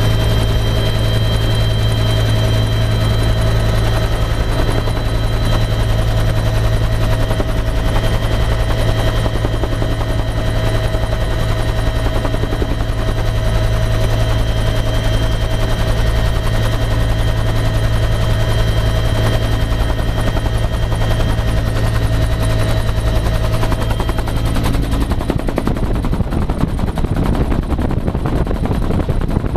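Bell UH-1 'Huey' helicopter in flight, heard from inside its open-door cabin: steady rotor and turbine noise, a low drone under a high whine. Near the end the whine fades and the noise turns rougher.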